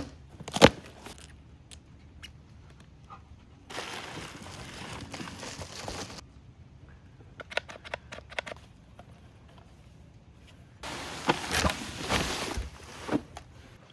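Handling noises: two stretches of rustling, crinkling noise a couple of seconds each, with scattered sharp clicks and knocks between them, as of packaging and parts being handled during setup.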